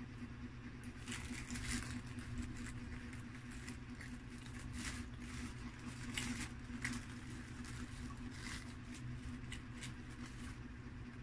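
Paper liner in a pizza box crinkling and rustling as hands handle it and tear a pizza slice apart, in short irregular crackles that start about a second in and stop near the end. A steady low hum sits underneath.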